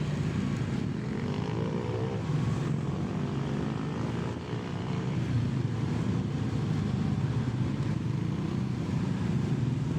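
Motorcycle engine running steadily under way, with road and wind noise, its pitch rising briefly about one to three seconds in.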